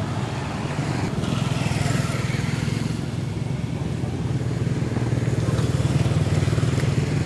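Motorcycle engine running steadily with an even, rapid low throb.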